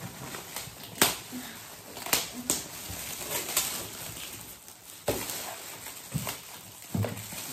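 Metallic foil gift wrap crinkling and rustling as it is pulled and torn open by hand, with several sharp snaps of paper and tape.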